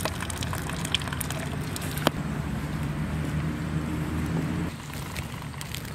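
A motor vehicle's engine running in the background as a steady low hum, stopping about three-quarters of the way through, with scattered light clicks and crackles in the first two seconds.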